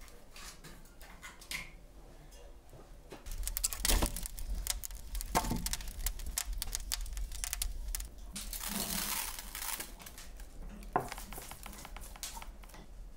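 Split logs burning in a brick wood-fired oven, crackling with a dense run of sharp pops that thickens a few seconds in and thins out near the end.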